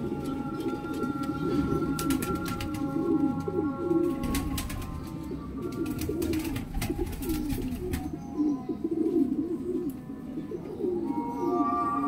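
Domestic pigeons cooing continuously, several low, wavering coos overlapping. Short runs of clicks come in twice near the middle.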